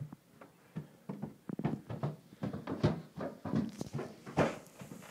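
Footsteps climbing carpeted stairs: a run of irregular soft thuds, a few a second.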